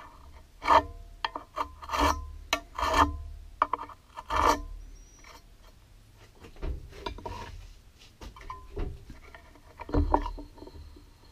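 Vernier caliper jaw scratching layout lines into a dyed aluminium bar held in a vise: a run of short scraping strokes with a faint metallic ring, louder in the first half.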